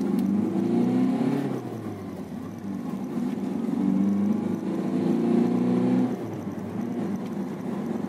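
Ford EcoSport's diesel engine accelerating hard, heard from inside the cabin. Its pitch climbs steadily and falls back twice, about one and a half seconds in and again about six seconds in, as the manual gearbox is shifted up.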